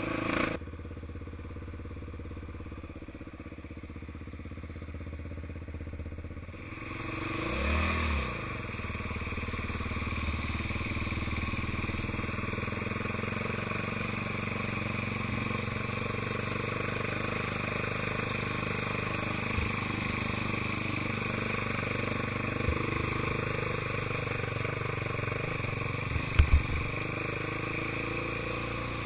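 ATV engine running on the move, revving up about seven seconds in as it drives into shallow water. After that the engine runs steadily under a constant hiss of water spray thrown up by the wheels. A few sharp knocks come near the end.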